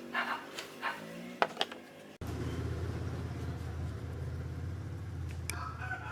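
A few light clicks and taps of parts being handled, then about two seconds in an electric motor switches on and runs with a steady low hum.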